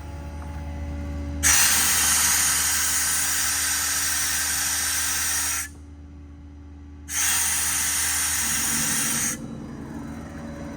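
Compressed air blowing from the PTO-driven hydraulic compressor's air hose in two loud hissing blasts. The first lasts about four seconds, and the second, about two seconds, starts a second and a half later. A steady low hum from the running truck and compressor continues underneath.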